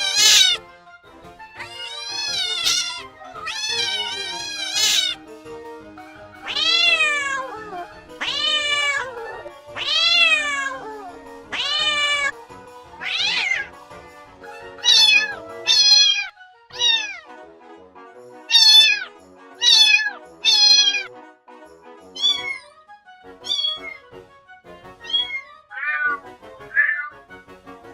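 A cat meowing over and over, a call every second or two: drawn-out meows in the first half, then shorter, higher-pitched meows, with soft background music underneath.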